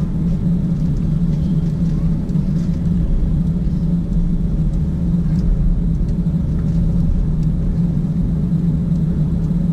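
Steady low rumble and hum heard inside the cabin of an Airbus A350-900 taxiing, its Rolls-Royce Trent XWB engines running at low power as the aircraft rolls along the taxiway.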